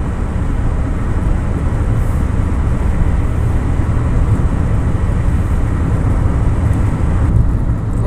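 Steady road noise inside a moving car's cabin at speed: a deep rumble of engine and tyres. The higher hiss thins out about seven seconds in.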